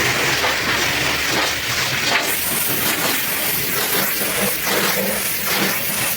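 High-pressure washer jet spraying, a steady hiss of water striking the truck, changing slightly in tone about two seconds in.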